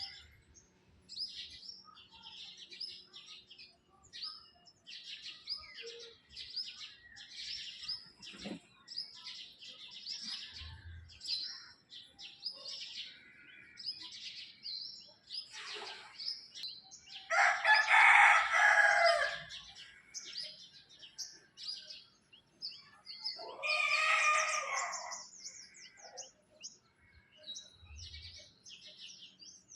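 Birds chirping in quick, repeated high calls, with two much louder, longer calls cutting in about seventeen seconds in and again about twenty-three seconds in.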